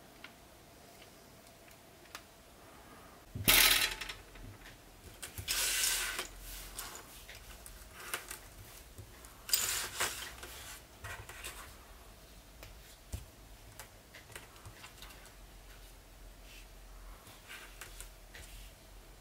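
Loose LEGO Technic plastic parts clattering onto a hard surface in three bursts, the first and loudest about three and a half seconds in, followed by scattered light clicks and taps as the beams and connectors are picked up and set down one by one while being sorted.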